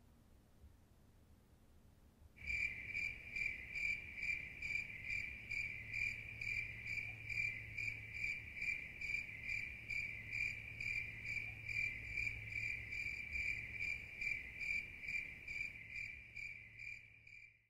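A cricket chirping in a steady, even rhythm of about two chirps a second, starting about two seconds in after near silence and fading just before the end.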